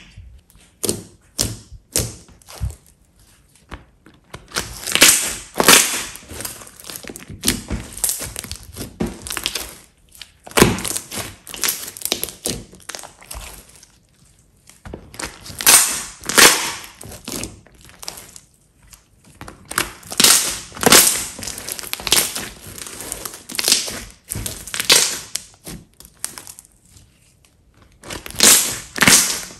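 Thick, glossy slime being pressed, stretched and pulled off a tabletop by hand, giving irregular bursts of sticky squishing and crackling, some brief and some drawn out over a second or so.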